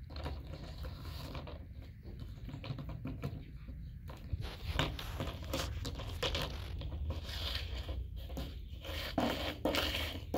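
Plastic bucket scraping and knocking on stone pavers as a Labrador puppy noses and shoves it along. There are irregular scrapes and clicks, with the puppy's paws pattering between them.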